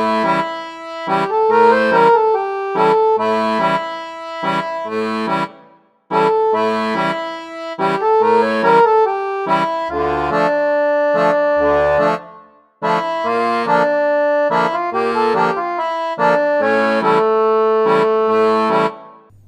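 Background music: an instrumental tune with a repeating bass line and a steady beat, breaking off briefly about six seconds and twelve seconds in.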